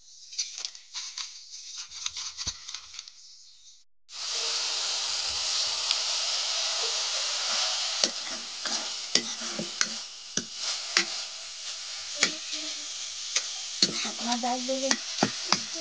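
Chopped spinach and potato sizzling steadily in a hot metal kadhai on a wood-fired chulha, with a steel ladle scraping and clinking against the pan as it is stirred. The sizzling starts suddenly about four seconds in.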